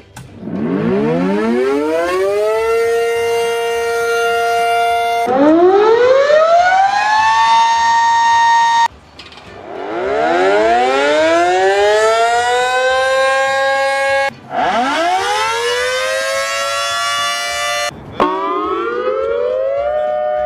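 A run of different warning sirens, one after another with abrupt cuts between them: five in turn, each winding up from a low pitch into a steady wail, each settling at a different pitch.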